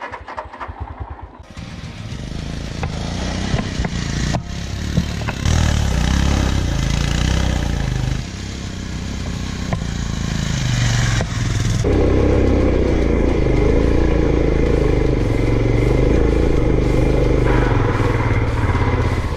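Royal Enfield Himalayan's single-cylinder engine ticking over briefly, then pulling hard up a loose, stony hill climb, its note stepping up and down with the throttle. About twelve seconds in it gets louder, with a rushing noise on top.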